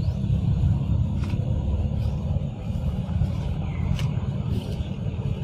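Steady, loud low rumble, with a few faint clicks over it.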